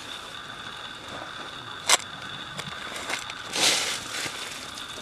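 Brief crunching rustle of dry ground litter, with one sharp click about two seconds in, over a steady high-pitched whine in the background.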